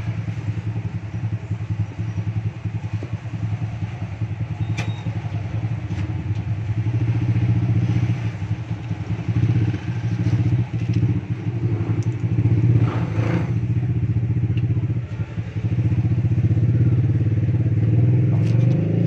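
A small engine running steadily at idle, with a low, fast, even pulsing throughout.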